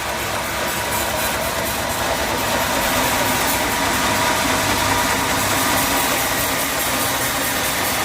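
Sawmill machinery running steadily: an engine hum with a few steady tones under a dense mechanical noise, slightly louder from about two seconds in.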